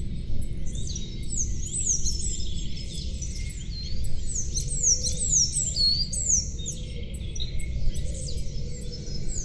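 Several songbirds chirping and singing at once in quick, overlapping, sharply falling notes, over a steady low background rumble.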